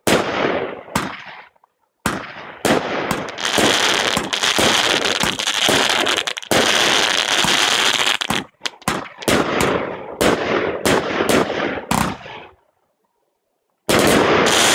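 A 51-shot Kompakt X-Fire II firework cake firing shot after shot, with sharp launch reports and bursts in quick succession. From a few seconds in there is a long stretch of crackling from its crackling stars. It pauses briefly about two seconds in and again near the end, before one last loud burst.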